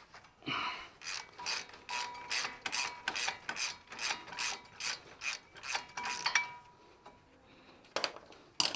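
Ratchet wrench clicking rapidly, about four clicks a second, as it backs out a bolt that is not very tight, then stops; two more clicks near the end.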